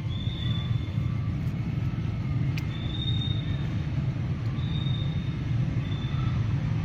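Steady low outdoor rumble, with short high-pitched calls heard several times over it and a single sharp click near the middle.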